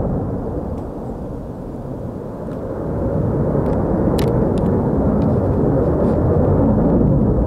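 Distant fighter jet's engine rumbling overhead as it manoeuvres, easing a little about a second in and swelling again from about three seconds in.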